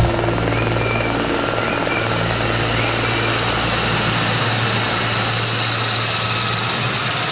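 Aérospatiale Gazelle helicopter running steadily, its Astazou turbine and Fenestron tail rotor giving a constant low hum under a thin high whine and a rush of air. The low hum drops away near the end.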